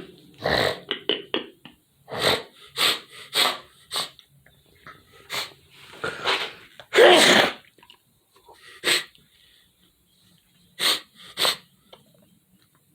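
A person sneezing again and again in short, sharp bursts at irregular intervals. The longest and loudest comes about seven seconds in.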